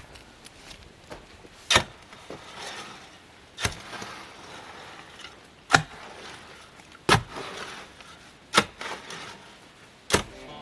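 A series of sharp knocks or strikes, six in all, spaced about a second and a half apart.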